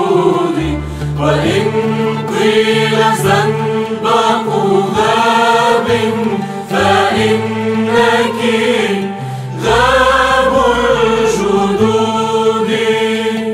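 Arabic Christian hymn: voices singing a slow melody over instrumental accompaniment with a moving bass line.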